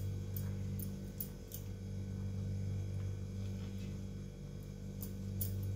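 Silicone spatula stirring and lightly scraping through thickening milk in a non-stick frying pan, giving faint short clicks at uneven intervals, over a steady low hum.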